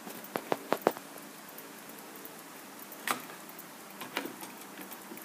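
Sharp, irregularly spaced clicks and taps from a brass pendulum clock mechanism being handled and tested: a quick run of four near the start, then single clicks about three and four seconds in.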